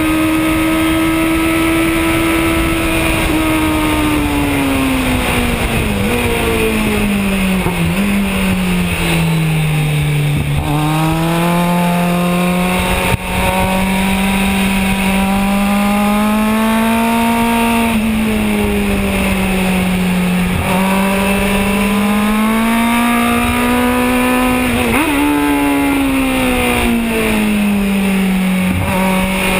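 Kawasaki Z1000's inline-four engine running hard on track. Its pitch falls gradually over the first ten seconds, then rises and falls several times with throttle and gear changes, over constant wind rush.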